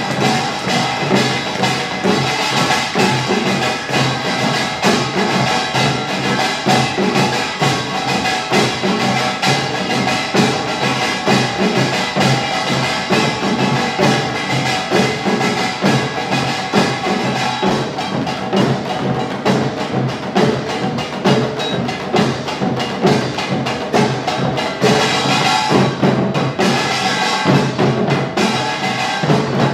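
Utdari samul nori: kkwaenggwari small gongs clanging over janggu hourglass drums and buk barrel drums, with a jing gong, in a dense, driving rhythm that never breaks.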